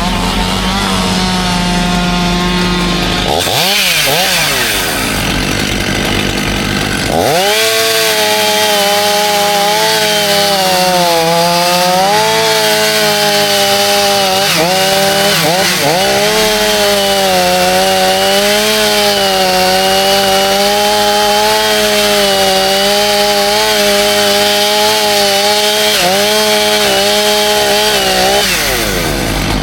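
Two-stroke chainsaw running at high revs, its pitch sagging and recovering as it works through a cut. Around four to seven seconds in the revs swing sharply up and down before it settles into a long cut.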